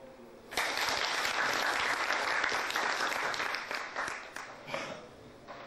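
Audience applauding: it breaks out suddenly about half a second in and dies down near the end.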